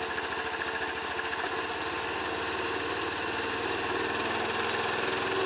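Small UTV engine running at idle, growing a little louder through the second half.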